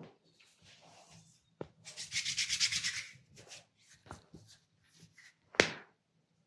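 Massage hands rubbing briskly, about a second of fast, even rubbing strokes, among soft taps, with one sharp crack near the end.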